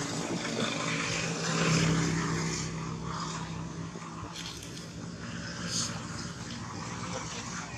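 A steady engine drone that swells to its loudest about two seconds in, then slowly fades.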